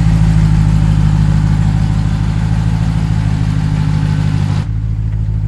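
Swapped-in 392 (6.4-litre HEMI) V8 in a Jeep Gladiator running at a steady low speed, an even low engine note with no revving.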